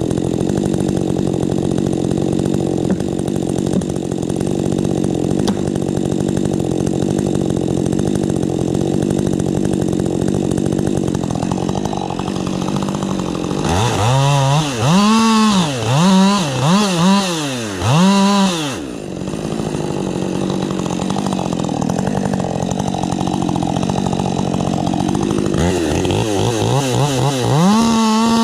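Husqvarna 550 XP Mark II two-stroke chainsaw running steadily at high revs for about half the time. Near the middle it is blipped up and down about five times in quick succession, then it settles back into a steady run. The revs climb again near the end.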